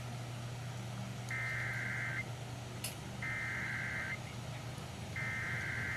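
Emergency Alert System SAME header: three bursts of digital data tones, each just under a second long and about a second apart, the third ending right at the close. They carry the coded flood-warning alert that opens the broadcast, over a steady low hum.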